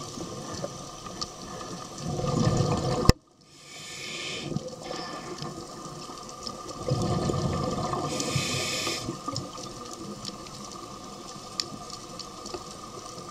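Scuba diver breathing through a regulator underwater: rumbling bursts of exhaled bubbles alternate with the hiss of inhaling through the regulator, each twice. The sound cuts out briefly about three seconds in.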